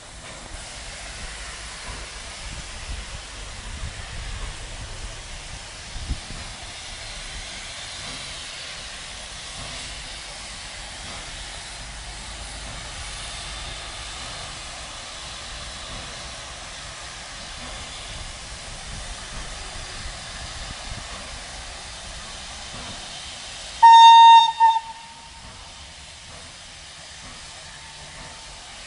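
FS Class 740 steam locomotive standing at a platform with steam hissing steadily. Near the end its whistle gives one short, loud blast.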